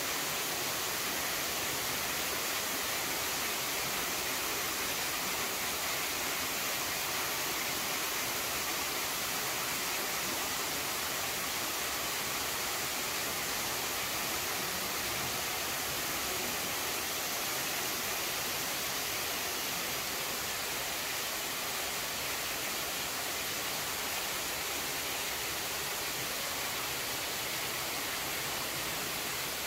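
Steady rush of a curtain of water falling from a cave overhang and splashing onto rocks and into a pond, an even hiss weighted toward the high range.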